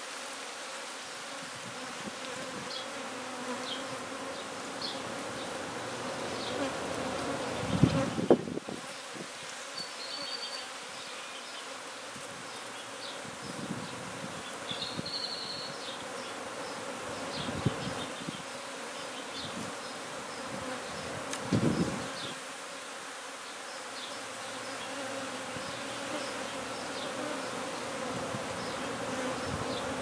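A swarm of honey bees buzzing close by in a steady, dense hum. Two short knocks stand out, about eight seconds in and again a little past twenty seconds.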